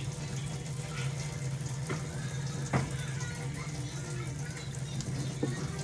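Water running and splashing at a kitchen sink as vegetables are washed by hand in a plastic basin, over a steady low hum. There is a sharp click a little under three seconds in and a smaller one near the end.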